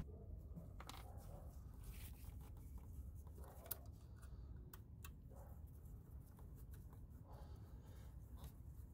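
Very faint handling sounds: a few light clicks and soft rubbing as a small mounting screw on the purge valve is turned out by hand, with one slightly sharper tick a little past the middle.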